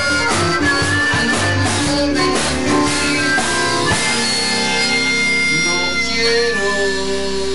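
A rock song played live by a band: strummed guitar and a man singing, settling into long held notes about halfway through.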